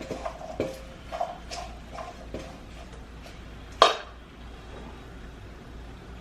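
Utensils clinking and tapping against dishes and bowls in a string of light knocks, with one much louder sharp knock just under four seconds in.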